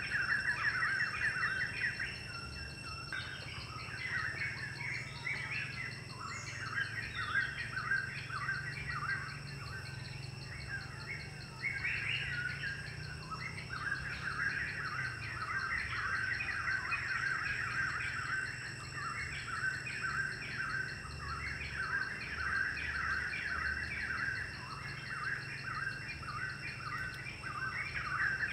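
Many small birds chirping in quick, dense runs of short notes, thinning out for a while in the first half. Beneath them is a steady, thin high-pitched insect drone.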